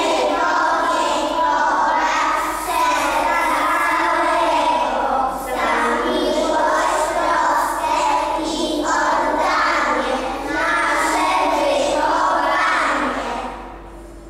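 A group of young preschool children singing a song together, phrase after phrase; the singing stops shortly before the end.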